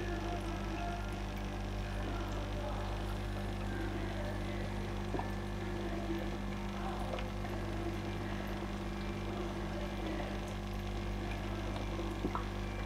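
Steady low hum with a few faint higher tones, and two faint clicks, one about five seconds in and one near the end.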